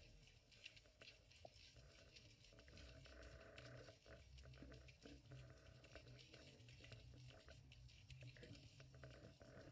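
Faint underwater sound picked up by a GoPro in its waterproof housing: a low steady rumble with many small scattered clicks and crackles.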